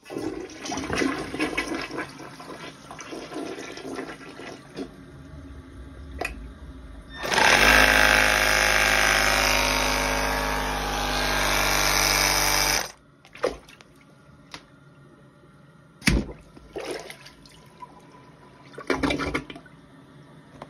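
A toilet flushing, water rushing and gurgling in the bowl for the first seven seconds or so. Then the Milwaukee AirSnake drain-cleaning air gun's pump runs with a loud steady hum for about five seconds, building air pressure, and cuts off suddenly. After it come a sharp knock and a short burst of noise as its cup works in the bowl.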